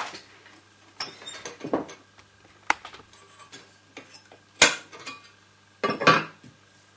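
Sharp metal clicks and clatters of a Bell & Howell 8D 655 16mm projector's film-path parts (sprocket guards, gate, loop formers) being worked by hand while film is threaded manually, the loudest snaps about two-thirds of the way in and near the end.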